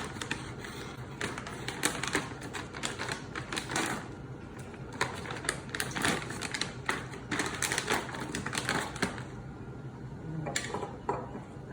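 Rapid, irregular clicking and clattering as things are handled in a kitchen, thinning out near the end.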